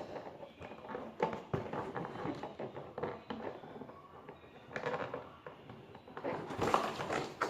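Handling noise from a toy drone being taken out of its plastic packaging: irregular clicks, taps and rustles of plastic. The noise is busier and louder near the end.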